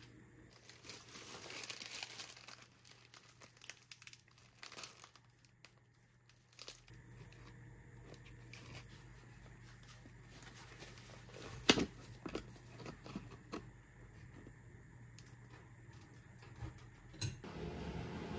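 Paper and plastic packaging of hotel amenities being handled, crinkling and rustling with small clicks, and one sharp click a little before midway.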